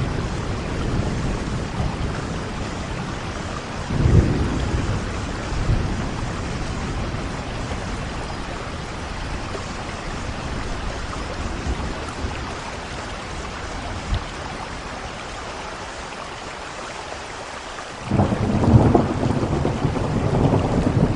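Heavy rain falling steadily. A thunderclap about four seconds in rumbles away over a couple of seconds, and a louder, longer rumble of thunder starts suddenly near the end.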